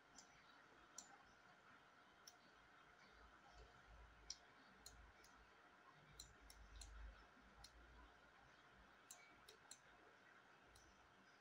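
Near silence with faint, irregular computer mouse clicks, about fifteen of them, some in quick runs.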